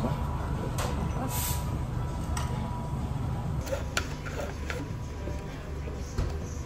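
Café background: a steady low rumble with faint indistinct voices and a faint steady high tone, broken by a few light clicks and knocks, one of them as a straw is stirred in a plastic iced-drink cup.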